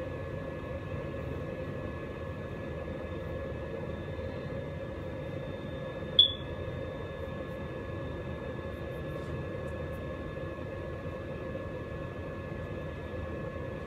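A steady hum with several faint, high, steady whining tones, broken by one sharp, brief click about six seconds in.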